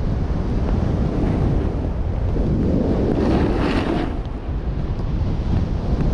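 Wind buffeting the microphone of a snowboarder's camera as he rides downhill, a steady low rumble mixed with the hiss of the board sliding over snow. The snow noise swells for about a second and a half around the middle, as the board digs in on a turn.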